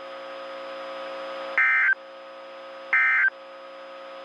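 Emergency Alert System end-of-message data tones: two short, buzzy bursts of digital data about a second apart, marking the end of the tornado warning. A faint steady hum sounds between the bursts.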